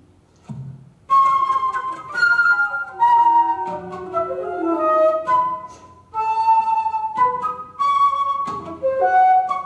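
Music: a flute-like wind instrument plays a quick, wandering melody of short phrases, starting about a second in after a soft low thud.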